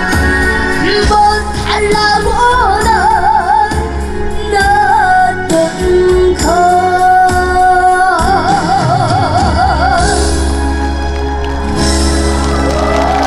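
A trot song performed with a backing band track: a high solo voice sings long held notes with wide vibrato over a steady bass. The voice drops out near the end while the accompaniment carries on.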